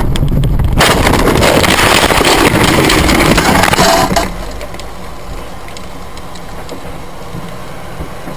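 Car collision heard from inside the car: a sudden crash about a second in, then about three seconds of loud crunching noise, settling into a lower steady noise with a few faint ticks as the car comes to a stop with its windshield cracked.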